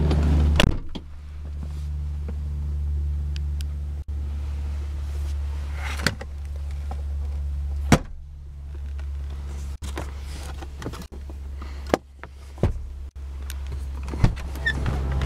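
Power front passenger seat of a 2003 Lincoln Town Car: its electric motors hum in several runs of a couple of seconds each, with sharp clicks from the switches in between.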